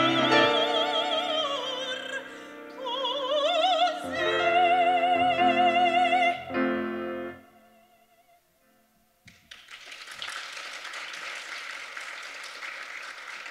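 A soprano sings an operatic song with strong vibrato over a grand piano, rising to a long held high note that ends with the piano's final chords. After about two seconds of silence, the audience breaks into steady applause.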